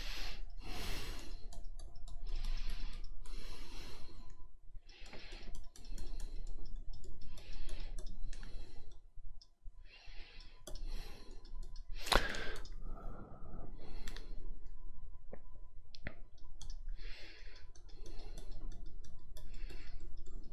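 Computer mouse clicks and the scratchy slide of the mouse dragged in short strokes, about one stroke a second, with a sharper click about twelve seconds in.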